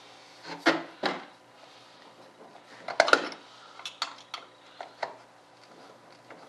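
Small hard parts clicking, clinking and rattling as hands work inside the RC jet's fuselage bay, with louder knocks about half a second to a second in and again about three seconds in, then a few light clicks.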